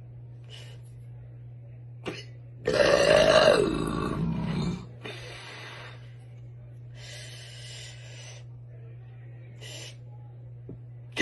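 A woman's long, deep, deliberate burp about three seconds in, lasting about two seconds, its pitch dropping near the end. Softer breathy sounds follow, and another loud burp begins at the very end.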